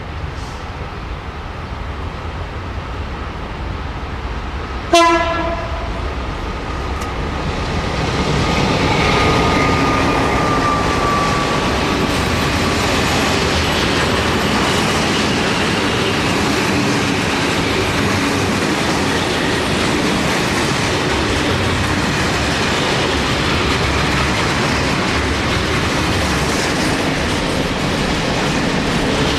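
A freight train's locomotive gives one short horn blast about five seconds in. The rumble of the train and the clickety-clack of its wagons on the rails then build up and run steadily as it passes.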